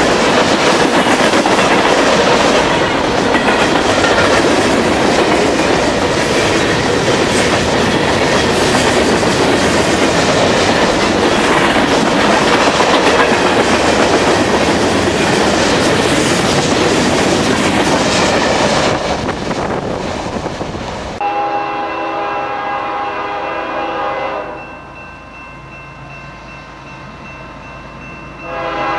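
Freight cars rolling past close by, wheels running over the rails. About three quarters of the way through this stops abruptly and a locomotive horn sounds a long multi-note chord, quieter for a few seconds, then louder again near the end.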